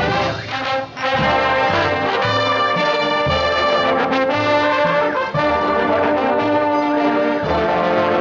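Marching brass band of trumpets and sousaphones playing a tune, with the sousaphones giving a low bass line in repeated notes; the music breaks off briefly about a second in, then carries on.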